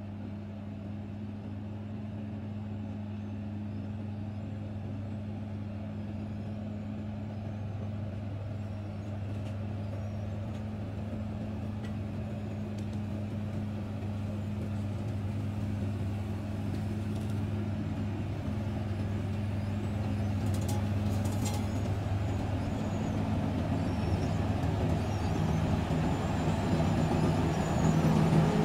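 Sany SCM2000 road milling machine at work, its diesel engine a steady drone under the grinding of the machine. It grows louder toward the end as it is approached.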